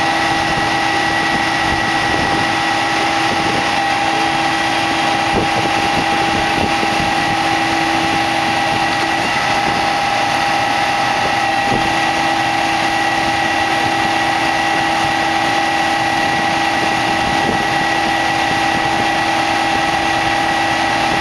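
Krone BiG X 1100 self-propelled forage harvester running: a loud, steady machine drone with constant whining tones that do not rise or fall.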